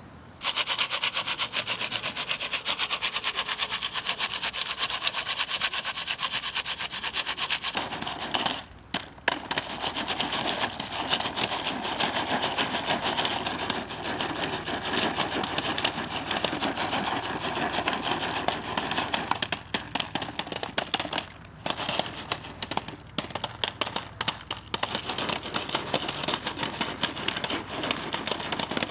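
A Jiffy Pop foil pan shaken back and forth over a campfire, making a continuous scraping rattle. It starts about half a second in and breaks off briefly twice, about nine and twenty-one seconds in, turning choppier in the later part.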